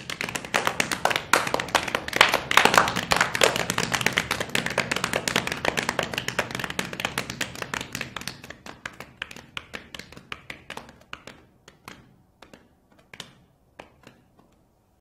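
A group of people making a rainstorm soundscape with their hands: a dense patter of finger clicks, claps and palm slaps on the floor, heaviest two to three seconds in, then thinning out from about eight seconds in to scattered single taps as the rain dies away.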